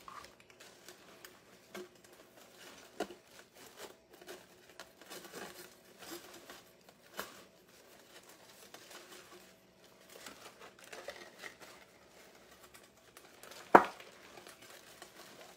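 Deco mesh and ribbon on a wreath rustling and crinkling as they are handled, with scattered light ticks and one sharp knock near the end.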